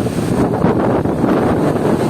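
Strong wind buffeting the microphone over the steady wash of ocean surf on the beach.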